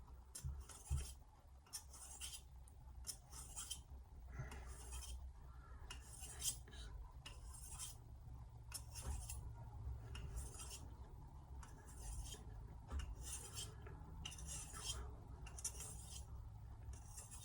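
Faint, repeated scraping strokes, about one or two a second, of a carbon-steel Japanese kitchen knife's edge being drawn against a hard surface to deliberately blunt it before sharpening.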